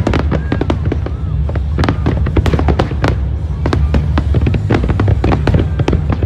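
Aerial fireworks display: shells bursting in rapid succession, many sharp bangs overlapping several times a second over a steady low rumble.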